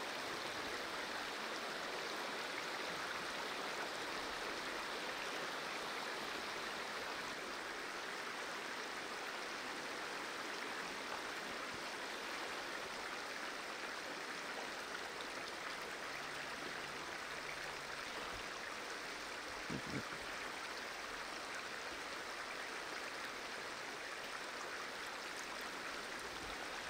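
A small rocky stream running over riffles: a steady, even rush of water.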